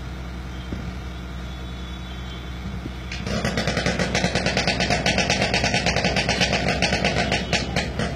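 A motorcycle engine in a steel-mesh globe of death, at first a steady low hum. About three seconds in it gets much louder as it is revved and ridden, its sound pulsing rapidly, about five times a second.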